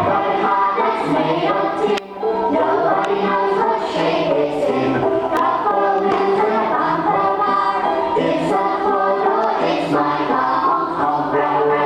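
A class of young children singing together in unison, with music playing along.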